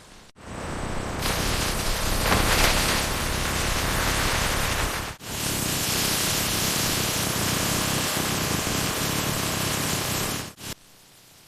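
Steady loud hiss of factory process noise, breaking off for an instant about five seconds in and stopping shortly before the end.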